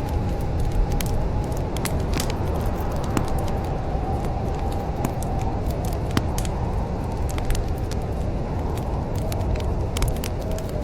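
Wood fire burning in a fireplace, crackling with frequent sharp pops over a steady low roar of flames. A faint wavering whistle runs underneath.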